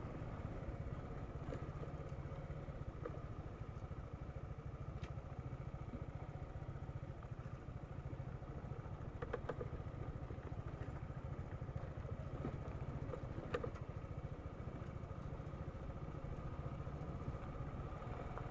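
Suzuki Gixxer SF 155 motorcycle's single-cylinder engine running steadily at low speed, with a few brief rattles about halfway through and again a few seconds later.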